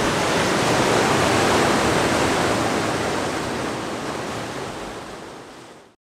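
Ocean surf washing onto a rocky shore: a rush of breaking water that swells to a peak about a second in, then slowly fades away.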